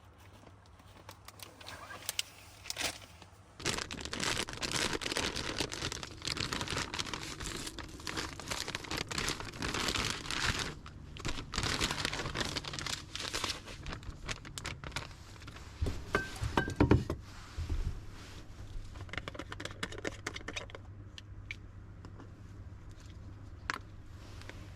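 Crinkling and rustling of packaging, such as a plastic bag or wrapper being handled, in long irregular bursts, with a few sharper knocks about two-thirds of the way through.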